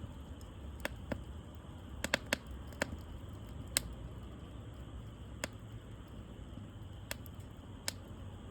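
Wood fire crackling: irregular sharp pops and snaps, about a dozen, over a low steady rumble.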